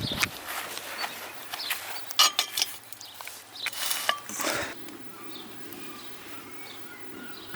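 Metal tools and bicycle parts clinking and knocking, a run of sharp clinks and clanks through the first few seconds. After that it goes quieter, with faint bird chirps in the background.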